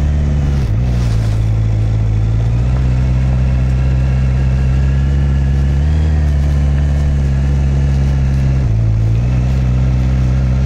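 Honda CB650R's inline-four engine running at low speed while riding slowly up a steep road. Its pitch drops and rises a few times.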